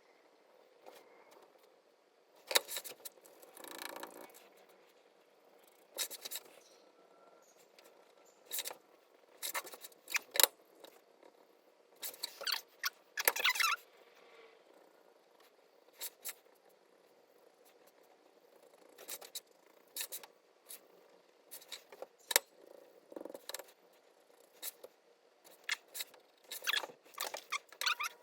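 Intermittent short scratchy strokes and light clicks of a drawing tool on steel bar stock while knife outlines are being freehand drawn, with quiet gaps between strokes.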